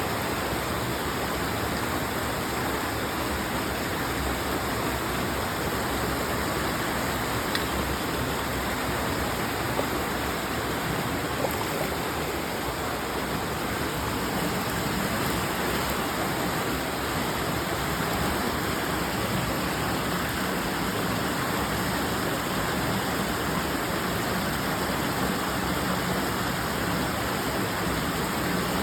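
Creek waterfall rushing steadily: a constant, even roar of falling and churning water.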